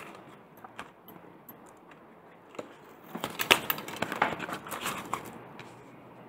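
A small deck of cards being shuffled and handled by hand: scattered soft clicks and flicks of card on card, coming thicker from about three seconds in.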